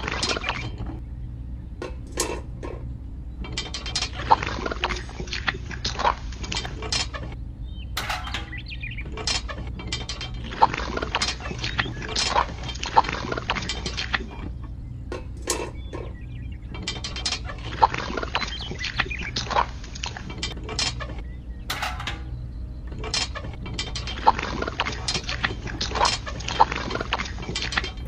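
Wet cement mortar being tipped and scraped out of a small plastic cup into square tube moulds: spells of wet clicking and scraping with short pauses between them, over a steady low hum.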